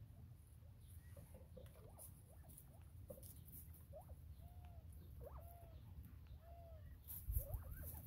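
A group of northern bobwhite quail making soft, short peeping and chirping contact calls while they feed, some notes rising quickly and some arched, several in a row. A louder low bump sounds about seven seconds in.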